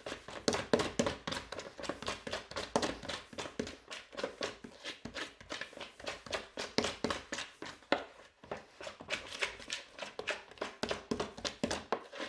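Homemade flour-and-water play dough being mixed in a pot: an irregular run of short knocks and scrapes against the pot, a few a second, as the stiffening dough is worked round.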